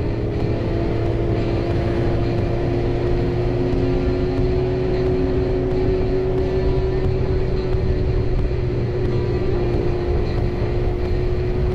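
Suzuki GSX-R750's inline-four engine running at a steady cruise, its pitch creeping up slightly, with a low rumble of wind and road underneath.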